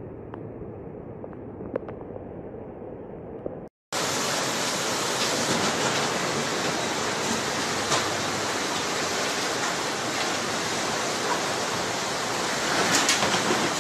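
Floodwater rushing in a fast muddy torrent, a steady even noise. It is duller and quieter at first, drops out for a split second about four seconds in, and comes back much louder and fuller, swelling slightly near the end.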